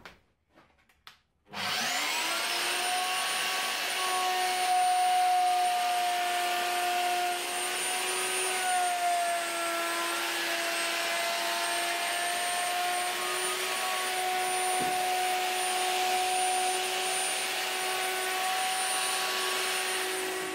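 Triton plunge router motor spinning up with a quickly rising whine about a second and a half in, after a couple of clicks, then running steadily while it routs a circle through MDF. The pitch sags slightly now and then as the bit takes load.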